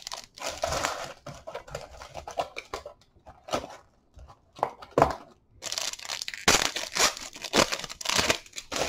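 Foil wrapper of a Bowman Chrome trading-card pack being torn open by hand and crinkled, in a series of short rustling tears. The crinkling is longest and loudest in the last three seconds as the wrapper is pulled away from the cards.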